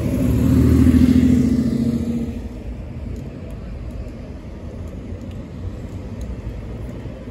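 A motor vehicle drives past close by, loudest about a second in and fading out by about two and a half seconds, leaving a quieter steady street background.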